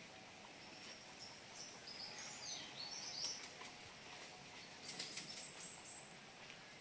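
Birds chirping outdoors: a few high, stepped chirps in the middle, then a quick run of short, very high notes about five seconds in, over faint background noise.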